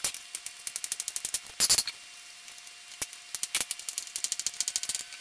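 Large kitchen knife chopping cheese into small cubes on a wooden cutting board: quick runs of sharp taps of the blade against the board, several a second, broken by brief pauses.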